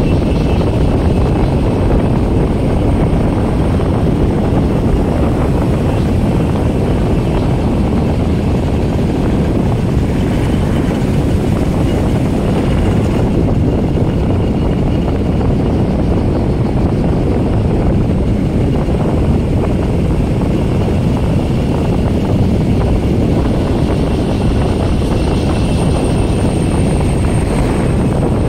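Wind rushing over the microphone mixed with a Honda Dio scooter's engine, cruising at a steady speed of about 40 km/h: a loud, steady low rumble.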